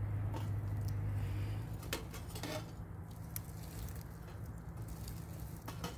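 Small titanium wood-burning stove's fire crackling, with a few sharp snaps about two seconds in and again near the end. A steady low hum runs under it and fades out about a second and a half in.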